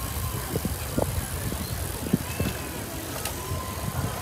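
A bicycle being ridden, with wind rumbling on the action camera's microphone. Several short knocks and rattles come from the bike over the road.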